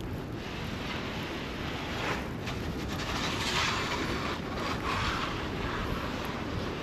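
City street ambience in a snowstorm: wind rumbling steadily on the microphone, with a hiss of passing traffic that swells in the middle and fades toward the end.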